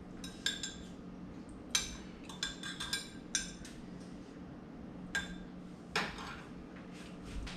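A metal utensil clinking against a container, a string of short ringing clinks at uneven intervals.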